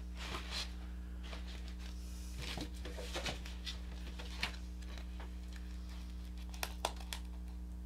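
Light paper rustling and small taps as a mailing envelope and stickers are handled and peeled, over a steady low hum. Two sharper clicks come close together about two thirds of the way through.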